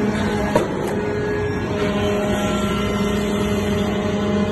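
Diesel-engine-driven hydraulic briquetting press running with a steady mechanical drone. A higher tone joins the hum about two seconds in, and there is a sharp click about half a second in.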